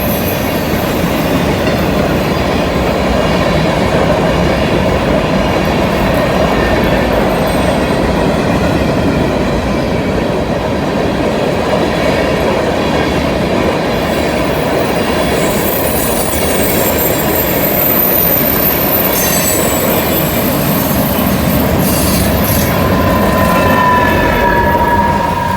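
Freight train cars rolling past through a curve: a steady loud rumble of steel wheels on rail, with thin high-pitched wheel squeal coming in during the second half and strongest near the end.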